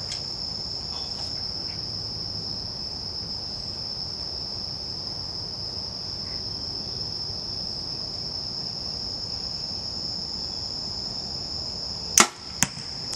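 Steady high-pitched insect chorus. Near the end a compound bow is shot with a sharp snap, followed about half a second later by a second, fainter click.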